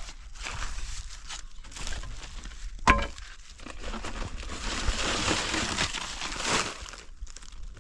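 Stiff plastic sheeting crinkling and rustling as it is handled and pulled out of a clay oven pit, louder for a couple of seconds in the second half, with one sharp knock about three seconds in.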